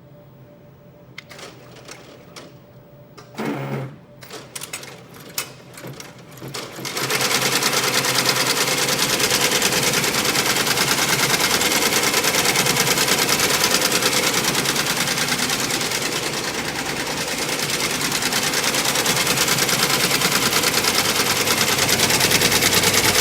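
ZSK JF08 embroidery machine: a few clicks and knocks, then about seven seconds in it starts stitching at speed, a loud, fast, steady mechanical chatter. It is the test run of the head with its freshly replaced take-up lever drive bearing.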